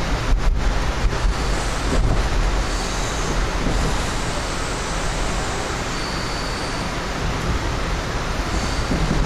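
Amtrak Empire Builder passenger train running at speed, heard from inside the car: a steady rumble and rush of wheels on the rails, with a few faint high tones coming and going.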